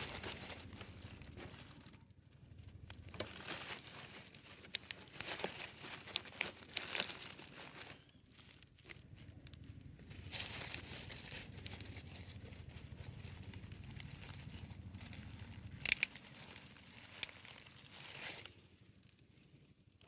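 Plastic crinkling and rustling as a length of low-density poly irrigation pipe is handled and worked onto its joiners, with several sharp clicks and snaps along the way.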